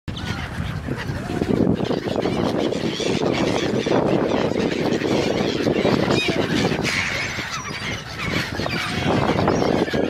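A large flock of gulls calling constantly as they are fed, many overlapping cries, over a steady rush of wind and choppy lake water.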